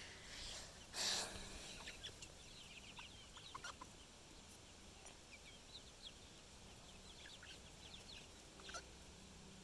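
Chickens clucking softly, a few short quiet calls spread through, with one louder burst of noise about a second in.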